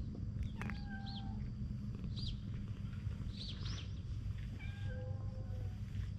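A cat purring, a steady low rumble, as it lies being brushed. A few short high chirps sound over it.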